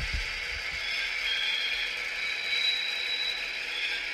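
H0-scale model of an ÖBB class 2068 diesel locomotive running slowly along the track: a thin, tinny mechanical rattle from its drivetrain and its sound-decoder speaker, with a high whine that comes and goes.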